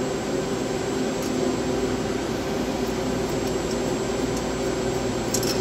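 Steady whir of server-room equipment fans and air conditioning, with a few faint clicks near the end.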